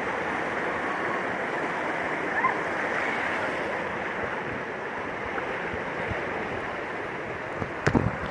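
Steady rush of water, with faint distant voices now and then and a few knocks near the end.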